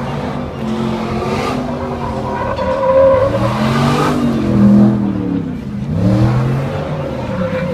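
Ford pickup drift truck's engine revving hard, its pitch rising and falling through repeated pulls as the truck slides sideways, with tire noise from the drift.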